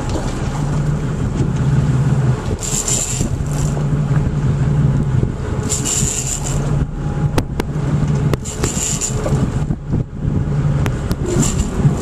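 Boat engine running slowly in gear, a steady low hum, with short hissing bursts every few seconds and a few sharp knocks in the second half.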